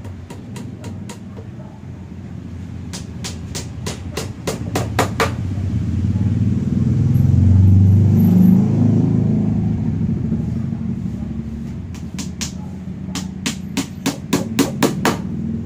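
Low vehicle rumble that swells to a peak about halfway through and then fades, with two runs of sharp clicks.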